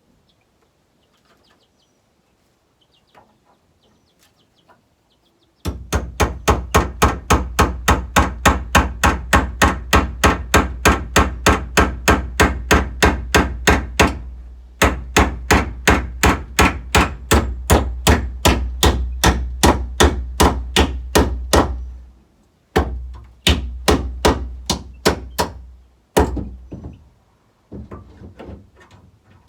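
Hammer driving nails into a wooden roost board. After a few quiet seconds comes a fast, even run of blows, about four a second, then a short pause and another run, then a few slower, separate blows near the end.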